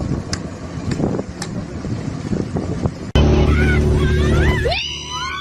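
A small motorboat's outboard engine running as it circles at speed, mixed with wake and wind noise; about three seconds in it gives way to a louder, steady low engine drone of another motorboat, with high voices rising over it near the end.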